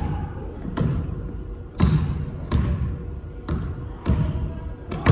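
Basketball being dribbled slowly on a court, bouncing about once a second, each bounce ringing briefly.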